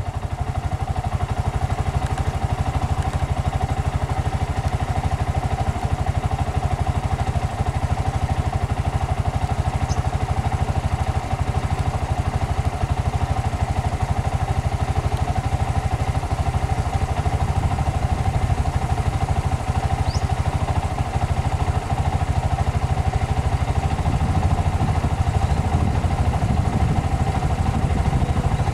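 A motor vehicle's engine idling steadily close by: a low, rapidly pulsing rumble with a steady hum above it.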